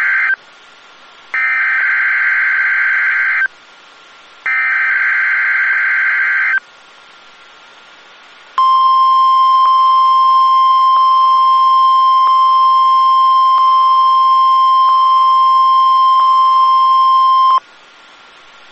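NOAA Weather Radio test alert. Three screechy SAME digital header bursts, each about two seconds long and a second apart, the first ending just after the start. After a short pause comes the steady 1050 Hz weather radio warning alarm tone, held for about nine seconds before it cuts off abruptly.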